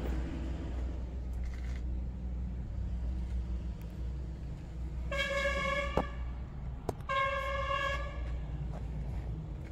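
A vehicle horn sounds twice: two steady, even-pitched blasts of about a second each, about a second apart, over a steady low rumble.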